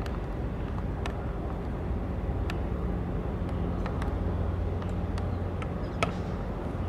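Steady low engine drone with a deep hum across open water, with a few faint sharp ticks scattered through it.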